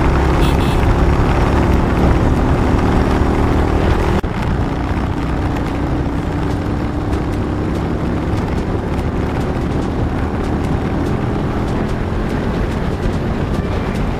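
Motorcycle engine running under way with steady wind rushing over the action camera's microphone. About four seconds in, the sound changes abruptly at a cut: the engine's hum weakens and the wind noise carries on a little quieter.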